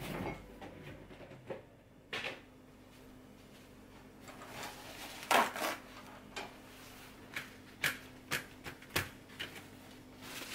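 Paper towel rustling and tearing as sheets are pulled off a roll and handled, among scattered clicks and knocks of kitchen handling.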